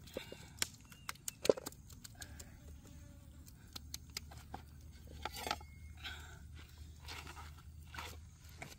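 Small clicks, crackles and scrapes of hands working at something at ground level, with one sharp snap about a second and a half in. Footsteps on rocks near the end.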